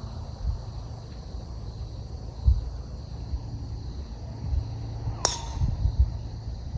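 Wind buffeting the microphone in low thumps over a faint, steady insect chorus, with one sharp click about five seconds in.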